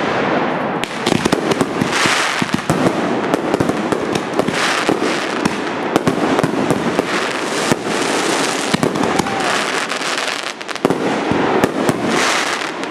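Aerial fireworks going off in a rapid barrage: many sharp bangs and crackles overlapping without a break.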